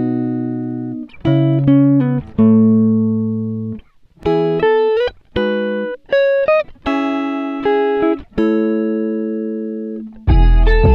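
Background music: plucked notes and chords, each struck and fading, with a brief pause about four seconds in and a fuller section with deep bass coming in near the end.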